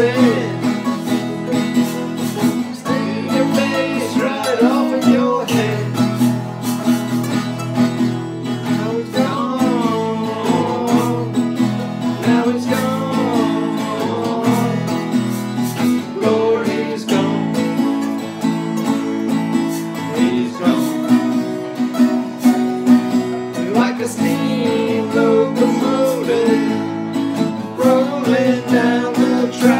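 Instrumental break: several acoustic guitars strumming chords while a harmonica plays a lead line with bent notes over them.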